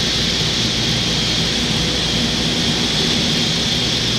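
Steady drone of a Boeing B-29 Superfortress's four Wright R-3350 radial engines and propellers, heard from inside the cockpit in flight, with a thin high steady whine running over it.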